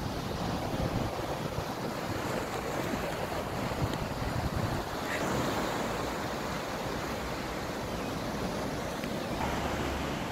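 Small sea waves washing onto a sandy beach in a steady rush, with wind buffeting the microphone.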